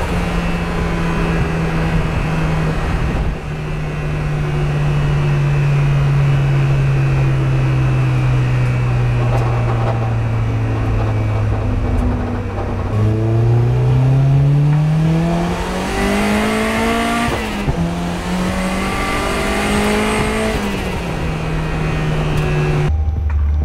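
Turbocharged Mazda MX-5 Miata four-cylinder engine on the move. Its note sinks slowly for a long stretch, then climbs steeply twice with a short break between, then eases off.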